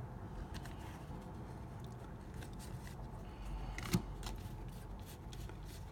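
Baseball trading cards being handled and flipped through by hand: faint scattered clicks and rustles over a low background hum, with one sharper click about four seconds in.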